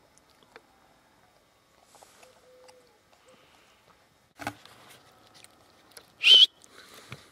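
A single short, loud whistled note about six seconds in, high-pitched and bending slightly in pitch. It is the loudest sound here. A brief thud comes a second and a half before it.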